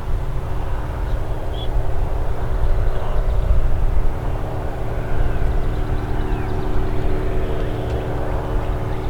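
Steady drone of a distant engine, with several even tones held over a low rumble and no change in pitch. A brief faint bird chirp about one and a half seconds in.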